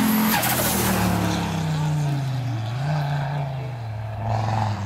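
Audi Quattro's turbocharged five-cylinder engine as the car drives past and away, its note falling in pitch with a short rise and dip about three seconds in.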